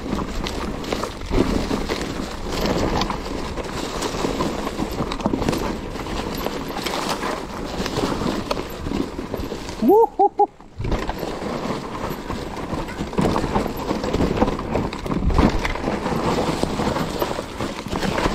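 Mountain bike rattling and knocking over a rough trail at speed, with a steady rush of wind noise. About ten seconds in the noise briefly cuts out and a short, high, rising call of three quick notes is heard.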